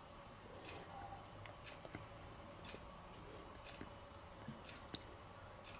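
Faint, scattered small clicks and taps, every second or so, from watercolour paint tubes and brushes being handled at a plastic palette, over quiet room tone.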